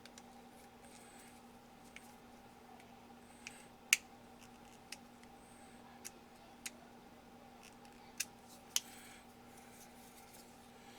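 Scattered light clicks and taps, about seven, the loudest about four seconds in, as the wooden grip panels and small parts are handled and fitted onto the M1895 Nagant revolver's frame, over a faint steady hum.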